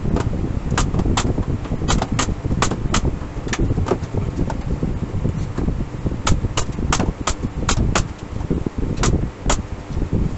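Pneumatic nail gun firing repeatedly, driving nails through a thin bent plywood strip into the edge of a round plywood form. About sixteen sharp shots come in quick runs roughly a third of a second apart, with a pause about halfway, over a steady low rumble.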